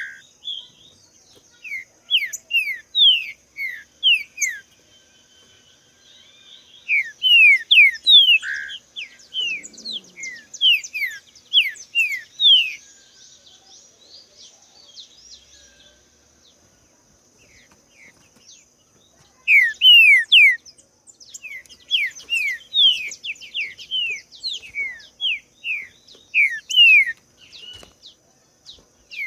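Green-winged saltator (trinca-ferro) singing: runs of quick, clear, falling whistled notes in three bursts, with pauses of a few seconds between them. A faint steady high-pitched hum runs behind.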